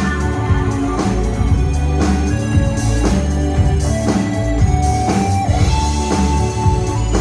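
Progressive rock band playing an instrumental passage: drum kit and guitar over a deep bass, with long held notes on top.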